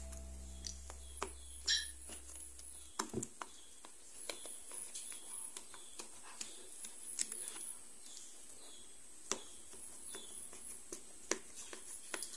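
A knife cutting through a sooji cake on a plate: scattered soft clicks and taps as the blade presses through the cake and touches the plate.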